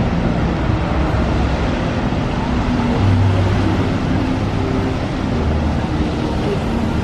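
Bellagio fountain's water jets and falling spray, a steady loud rush with a deep rumble underneath, swelling for a moment about three seconds in.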